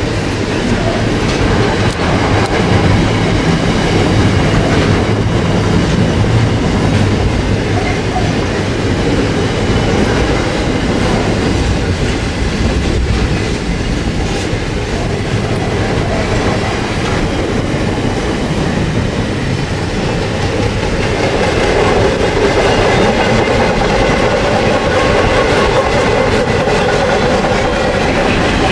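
Container wagons of a long freight train rolling past close by: a steady rumble and clatter of wheels on the rails. A higher droning tone comes in about three-quarters of the way through.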